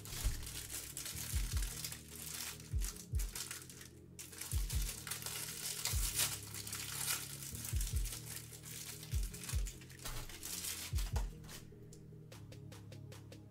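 Clear cellophane wrapper crinkling and tearing as frosted snack cakes are pulled open by hand, fading off near the end. Background music with a steady bass beat plays underneath.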